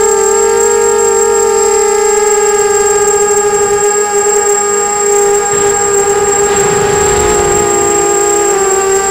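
Brushless motors and propellers of a 250-size FPV racing quadcopter whining at a steady, fairly high pitch, heard from the onboard camera. A rush of wind noise swells in the second half, and the pitch dips slightly near the end.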